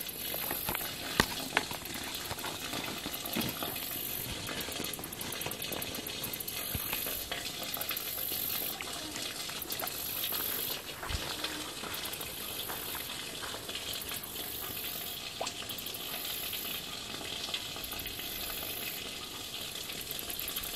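Steady outdoor hiss with a few faint pops and clicks scattered through it; the highest part pulses on and off about once a second.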